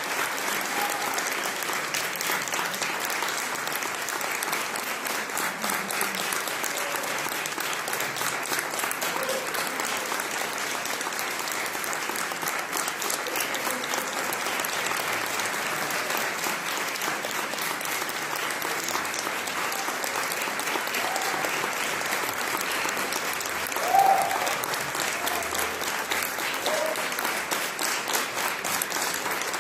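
Concert audience applauding steadily, a dense mass of clapping hands, with a few voices calling out among it and one brief louder call about three quarters of the way through.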